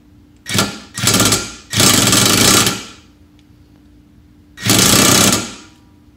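Cordless impact wrench hammering on the pinion nut of a Ford 8.8 rear differential in four bursts, two short ones and then two longer ones, with pauses between, as it strains to tighten the nut.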